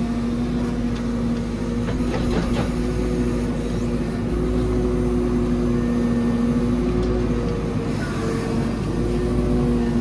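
The JCB 4CX backhoe loader's diesel engine runs steadily under hydraulic work, heard from inside the cab as the backhoe arm swings and tips a load of turf. The engine note holds steady, shifting slightly about four seconds in.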